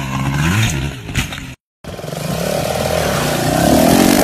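Dirt bike engine revving with its pitch rising and falling. It cuts off briefly, and then a second small dirt bike's engine revs up steadily higher and higher.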